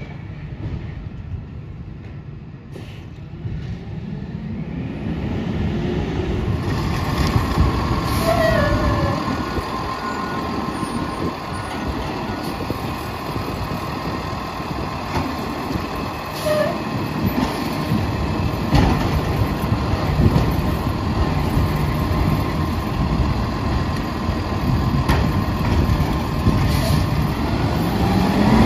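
Autocar ACX side-loader garbage truck rolling up and standing with its engine running, a steady whine over it and scattered knocks and clunks. Near the end the engine revs up with a rising pitch.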